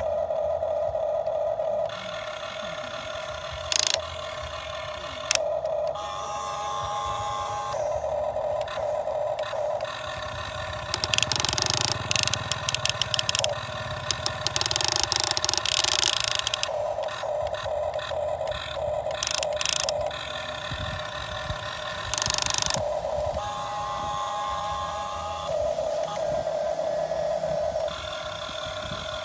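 RC model excavator's electric motors whining, the whine repeatedly switching on and off and changing pitch as the controls are worked, with a long stretch of rapid rattling in the middle.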